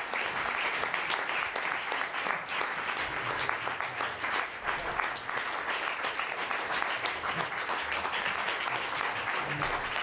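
Audience applauding steadily, many hands clapping at an even level.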